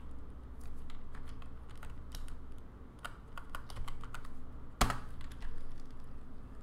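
Typing on a computer keyboard: irregular key clicks in short runs, with one sharper, louder click a little under five seconds in.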